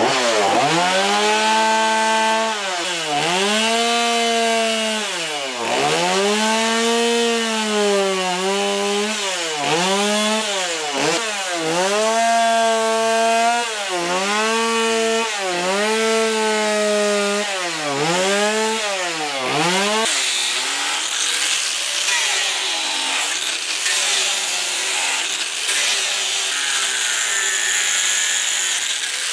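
Stihl MS 170 two-stroke chainsaw cutting wood, its engine revving up and bogging down again and again as it makes short cuts. About twenty seconds in the saw stops and an angle grinder takes over, grinding the wood with a high whine that rises and falls.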